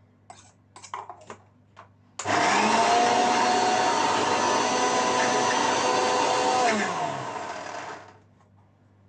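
Electric mixer grinder grinding fried onions in its small steel jar. A few clicks and knocks as the jar is handled, then the motor starts abruptly about two seconds in, runs steadily with a high whine for about four and a half seconds, and winds down in pitch after it is switched off.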